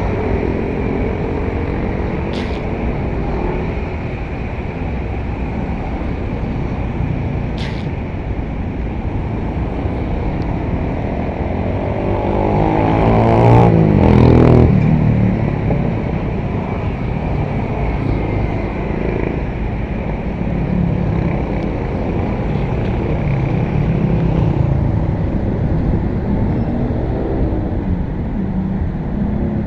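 Engines running steadily. About halfway through, one engine grows loudest, its pitch rising then falling. There are two sharp clicks in the first eight seconds.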